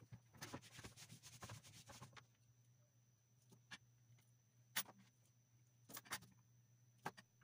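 Faint scratching and small ticks of metal tweezers and a soldering iron tip on a circuit board while a flash chip is soldered into place. There is a quick cluster of scrapes in the first two seconds, then a few single ticks, over a faint steady hum.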